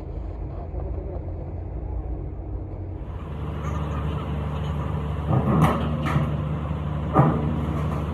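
Engine running steadily, with a few sharp metallic knocks about five and a half and seven seconds in.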